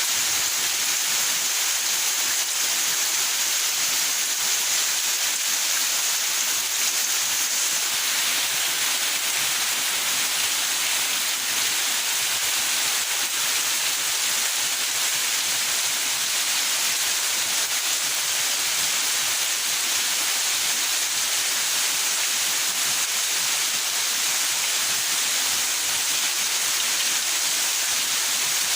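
Steady heavy rain falling in a backyard, an even hiss of water with no single drops standing out.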